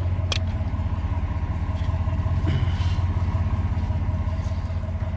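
Pickup truck's engine running steadily, a low even drone with a short click shortly after it starts.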